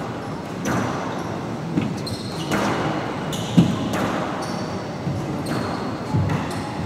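Squash rally: the ball cracking off rackets and the court walls several times, the loudest hit about halfway through, with sneakers squeaking on the wooden court floor between shots.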